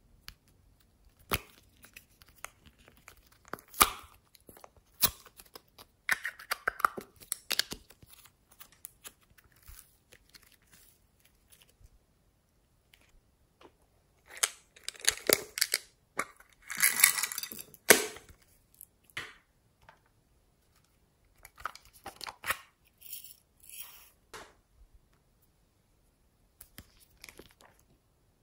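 Small plastic novelty containers being opened and handled by hand: a few sharp plastic clicks and snaps, with stretches of rustling, tearing-like scraping as the clay-filled cases are worked open.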